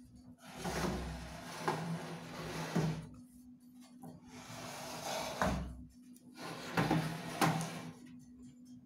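Three bouts of scraping and rubbing, each with a few sharp knocks, as of objects being handled and set down, over a steady low hum.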